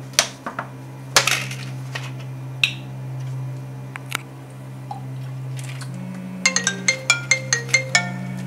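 A steady low music drone, with a few sharp clinks and knocks of cups and containers being handled in the first few seconds. From about six seconds in, a bright plinking marimba-like tune starts, about four or five notes a second.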